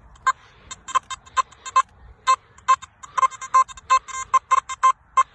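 Nokta Makro Simplex metal detector beeping as its coil sweeps back and forth over a buried metal target: a quick, uneven run of short beeps, all at the same pitch.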